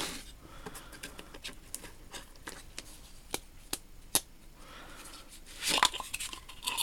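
Small metal tools being handled in a toolbox drawer: scattered light clicks and taps, with a short rustle near the end.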